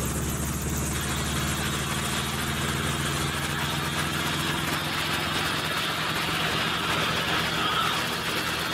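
Enstrom light helicopter running on the ground with its main rotor turning: a steady engine and rotor drone that grows fuller about a second in, as the helicopter lifts into a low hover near the end.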